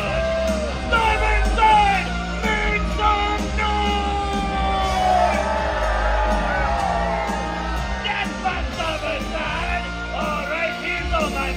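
Live stage-show music over a PA: performers sing and yell into handheld microphones over a backing track with a steady beat.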